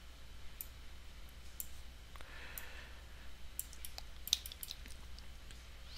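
A few scattered computer mouse clicks, the loudest about four and a half seconds in, over a low steady hum.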